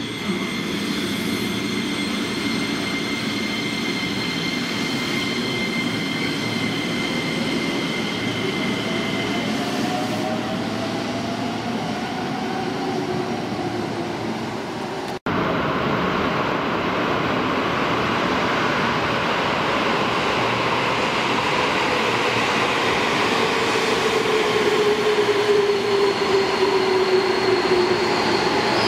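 205 series electric trains running: first a train pulling away with its motor whine rising as it gathers speed, then, after a cut, a louder train in an underground station with a whine falling in pitch as it slows.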